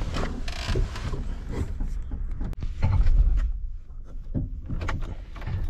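Clicks, knocks and rustling of someone settling into a Renault 4's driver's seat and fumbling at the wiring under the dashboard, with a louder low rumble about three seconds in. The engine is not yet running.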